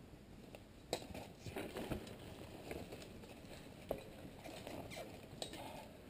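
Mountain bike rolling over rough dirt singletrack: faint crunching of tyres on dirt and rattling of the bike, with a few sharp knocks and clicks scattered through.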